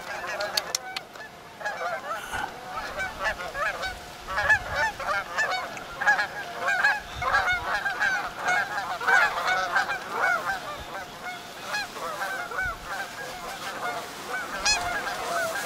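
A large flock of wild geese calling, many honks overlapping in a continuous chorus as the birds circle and set in to land.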